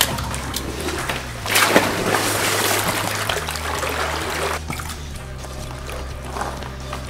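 Water splashing and sloshing as an alligator moves in its pool, loudest for about three seconds starting a second and a half in, over background music.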